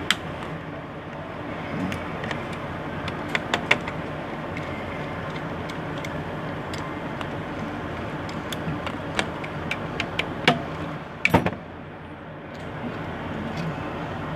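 Scattered light clicks and taps of laptop parts and screws being handled during reassembly, over a steady background hum, with a louder double knock about eleven seconds in.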